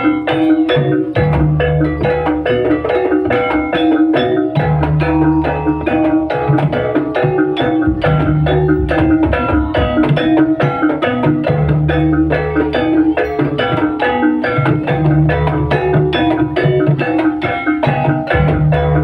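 Javanese gamelan music for a jaranan dance: a quick, steady run of struck metallophone notes over recurring drum and low gong-like tones.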